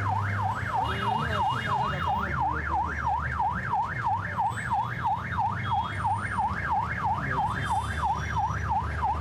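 Police vehicle siren in a fast yelp, rising and falling about three to four times a second, over the low rumble of the vehicle's engine.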